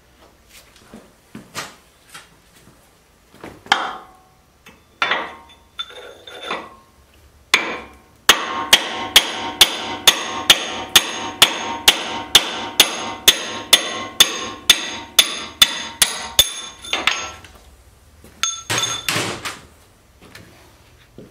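Hammer blows on a steel drift, driving a forklift tilt cylinder's pivot pin out of its bore. A few scattered knocks come first, then a steady run of ringing metal strikes, about three a second for some eight seconds, then a few more knocks near the end.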